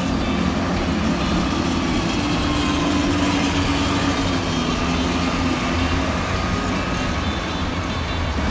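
Street traffic with small go-karts driving past on the road, their engines running; an engine tone falls slowly in pitch through the middle.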